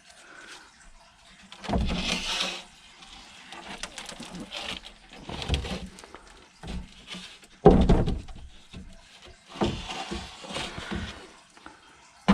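Handling noises: irregular knocks, bumps and scraping rustles, the loudest a sharp knock about eight seconds in.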